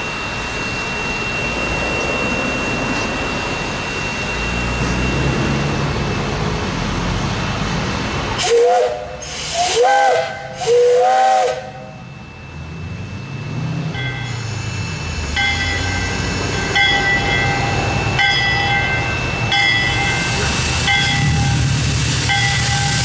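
Steam locomotive standing with a steady steam hiss, then its steam whistle blows three loud blasts in quick succession, each bending in pitch. After that a bell-like ringing tone repeats about every second and a half over a low rumble.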